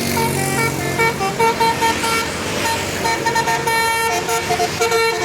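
Tour bus's telolet multi-tone horn playing a quick melody of short stepped notes. The bus engine hums low underneath.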